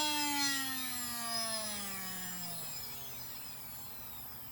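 CD-ROM drive spindle motor on a three-phase speed controller, winding down from top speed. Its whine falls steadily in pitch and fades out over about three seconds.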